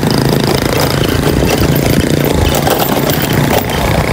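Small motorcycles running steadily while riding along a dirt road, their engine hum fading somewhat after the first second, under a loud even rush of noise.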